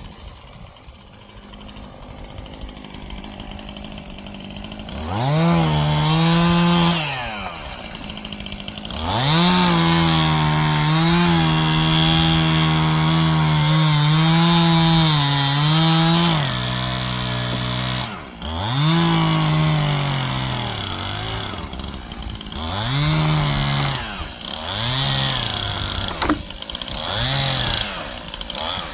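Stihl chainsaw idling for about five seconds, then revving up and cutting through downed trees. It holds one long cut at full throttle for about seven seconds, drops back, and then revs again in several shorter bursts.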